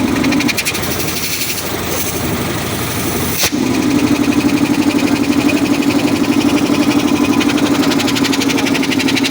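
High-pressure piston air compressor running under test with a rapid, even pulsing beat. Its steady hum drops away about half a second in, a sharp click comes about three and a half seconds in, and then the hum returns louder with the fast pulsing.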